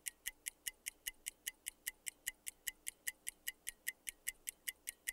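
Countdown timer sound effect: quick, even clock-like ticking, about five ticks a second.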